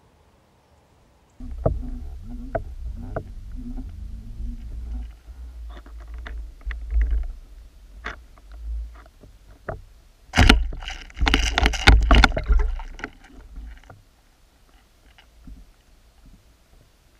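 Muffled underwater noise picked up through an action camera's waterproof housing: a low rumbling water rush with scattered sharp clicks and knocks. A louder burst of noise and knocks comes about ten seconds in, then dies down.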